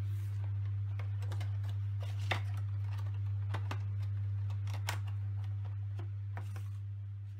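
Thin clear plastic case of compound jars being handled: scattered sharp clicks and crinkles of the plastic as a plastic-lidded jar is slid in and the case is turned over, the loudest click a little after two seconds in. A steady low hum runs underneath.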